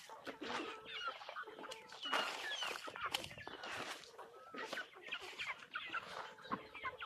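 Chickens clucking and chirping in short, repeated calls while they feed on corn grits.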